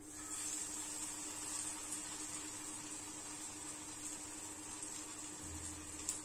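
A sabudana (sago) patty sizzling in hot oil in a shallow pan. The sizzle comes up as the patty is slipped in and then runs on steadily.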